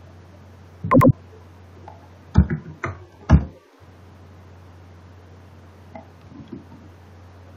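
About four loud thumps of computer keyboard keystrokes picked up close to the microphone, all within the first three and a half seconds, over a steady low electrical hum.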